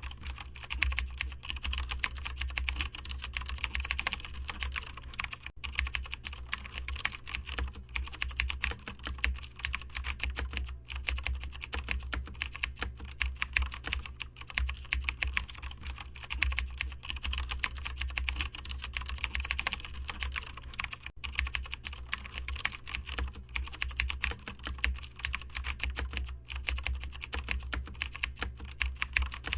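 Typing on a computer keyboard: fast, irregular key clicks without a break, over a steady low hum.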